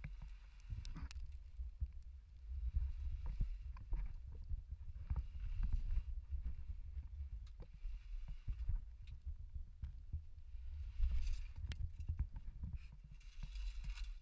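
Muffled low rumble from a worn GoPro rubbing on clothing and rock as a caver moves through a tight squeeze, with scattered knocks and scrapes. There are a couple of brief scraping rushes near the end.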